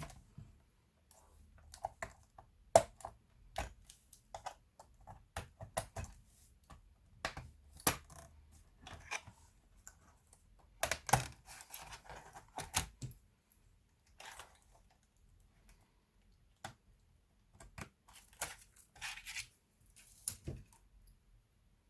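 Irregular clicks, snaps and taps of a laptop's plastic parts being handled and taken apart, with a dense run of clicks about halfway through.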